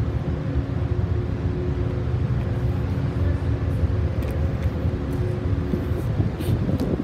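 Car ferry's engines running with a steady low rumble and a few held hum tones, heard on the enclosed car deck. A few light clicks come near the end.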